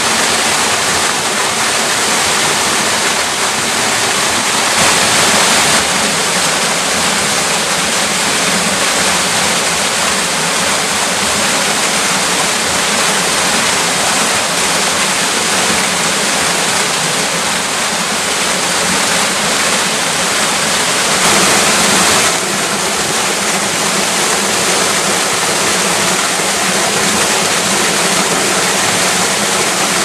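Small waterfall pouring steadily into a rock pool: a constant rushing splash of falling water, briefly louder twice.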